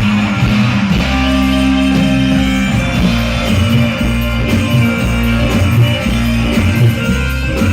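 Music with guitar over heavy, sustained bass and a steady beat, played loud through a large PA sound system during a sound check.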